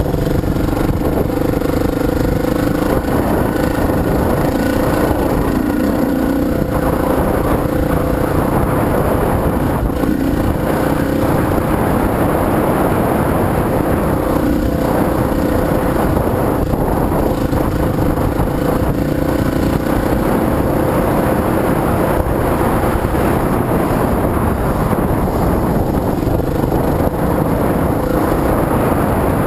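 Dirt bike engine running at a steady pitch while the bike rides along a dirt road.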